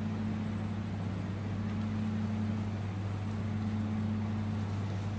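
Steady low engine hum of a moving vehicle under an even rushing noise, unchanging throughout.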